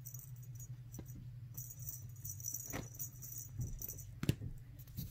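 A feathered cat wand toy jingling and rattling in bursts as it is shaken, with a few light taps, the sharpest about four seconds in.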